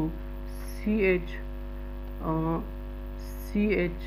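Steady electrical mains hum from the recording setup, with four short murmured voice sounds about a second apart over it. Faint scratches of a marker writing on a whiteboard can also be heard.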